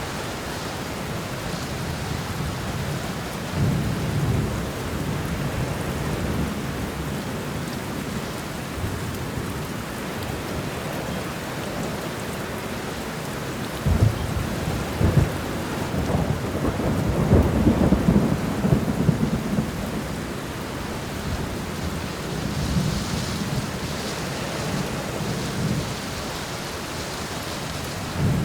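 Steady rain with thunder rumbling several times. About halfway through come two sharp cracks, then a long, heavy rumble, the loudest part, fading into softer rolls.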